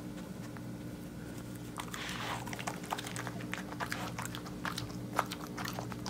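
A Jindo-mix dog munching treats, short irregular crunching clicks of chewing that start about two seconds in and keep on.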